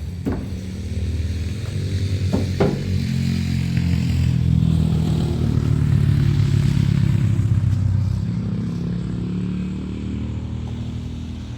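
An engine running, swelling louder over several seconds and then easing off, with a few sharp knocks in the first three seconds.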